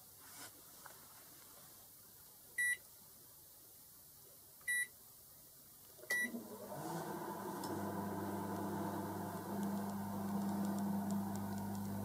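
Toshiba ER-CS30 microwave oven's control panel giving three short high beeps, then the oven starting up just after the third and running with a steady low hum while it heats a cup of water.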